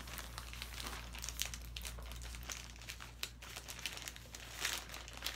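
Plastic mailer bag crinkling and tearing as it is pulled open by hand, with irregular small crackles that get louder near the end.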